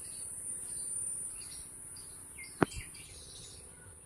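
Steady high-pitched insect trill with scattered faint bird chirps, and one sharp click about two-thirds of the way through.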